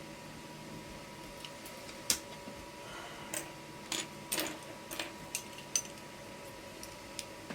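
Plastic LEGO Bionicle pieces clicking and clattering as they are handled and snapped together: about a dozen sharp, irregular clicks, bunched in the middle, over a faint steady hum.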